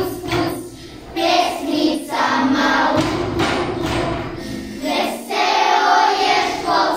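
A group of children singing a song together, in sung phrases with short breaks between them.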